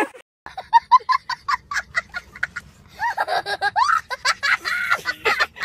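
A young child laughing hard in quick, high-pitched bursts, with longer rising squeals of laughter about three seconds in.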